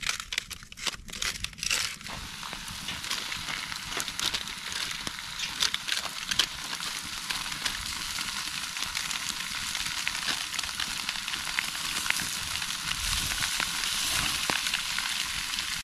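Lamb steak sizzling on a steel mesh grate over a wood campfire, a steady hiss with small crackling pops from the fire, after a few sharp crinkles of aluminium foil in the first couple of seconds. The sizzle cuts off suddenly near the end.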